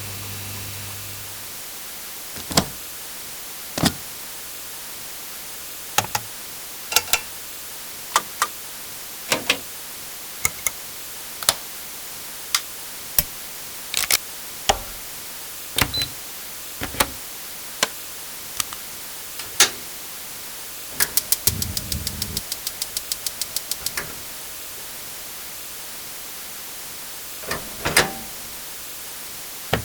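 A series of different electrical switches clicking on and off, single and double clicks a second or so apart, with a fast even run of about ten clicks a second near the three-quarter mark, like a rotary switch being turned. At the very start a low electric hum stops.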